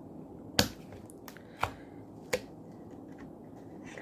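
Handling of the opened smartphone and its detached screen: four short, sharp clicks and taps in the first two and a half seconds, the first the loudest.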